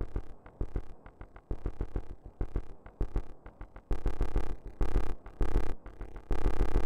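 Electronic synthesizer music: a rhythmic, arpeggiated pattern of short pulsing notes over deep bass, growing louder and fuller about four seconds in.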